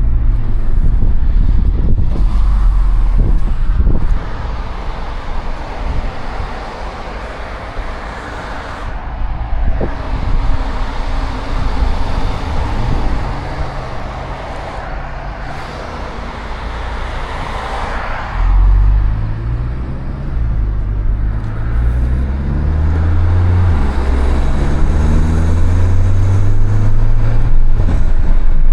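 Turbocharged 2.0-litre four-cylinder of a 2015 Volkswagen Golf GTI, with a Stage 1 tune and open intake, driving, with a steady hiss of tyres on a wet road. About two-thirds of the way through, the engine note climbs in pitch several times as the car accelerates.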